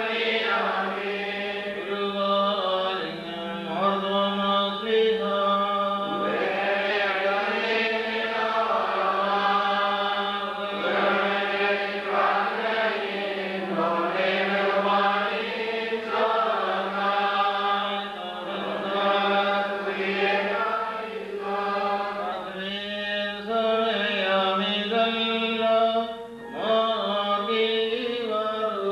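Sung liturgical chant of the Malankara Orthodox Syrian rite: voices chanting a flowing melody over a steady low drone.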